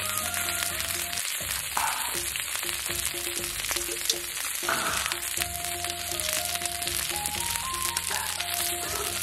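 Meat sizzling on a hot iron teppanyaki griddle, a steady hiss, under background music with a simple stepped melody.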